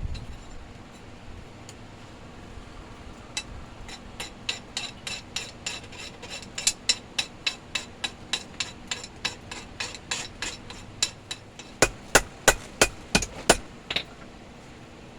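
Blacksmith's hammer striking steel on an anvil: a steady run of blows, about three a second, each with a ringing tone, ending in a group of six or seven heavier blows near the end.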